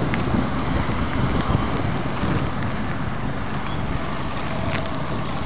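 Steady rushing noise of a swollen, fast-flowing river in flood, with wind buffeting the microphone.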